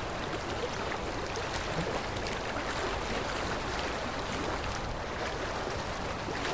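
Rushing river water running over rapids: a steady, even rush.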